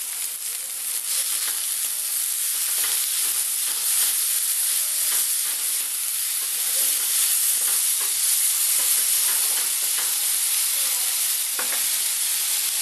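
Diced tomatoes, mushrooms and onion sizzling in hot olive oil in a frying pan, a steady hiss, with a slotted spatula stirring and scraping through them.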